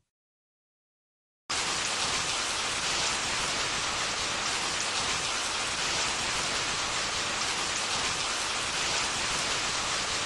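Steady heavy-rain sound effect, a dense even hiss that cuts in abruptly about a second and a half in and stops just as abruptly at the end.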